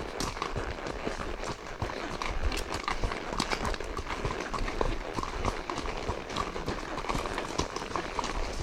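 Horses' hooves clopping on a gravel forest track: a steady, uneven patter of hoofbeats from the ridden horse and the horse just ahead.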